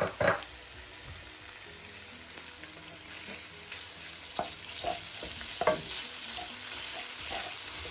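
Raw chicken pieces sizzling in oil with sautéed garlic and onion in a nonstick wok, stirred with a wooden spoon that scrapes and knocks against the pan now and then. The loudest knock comes right at the start.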